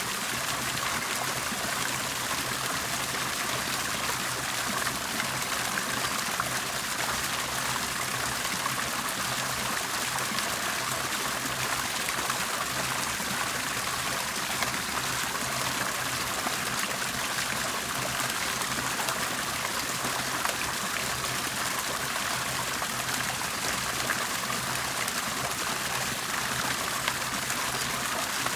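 Water bubbling and trickling steadily without a break, with a faint steady low hum underneath.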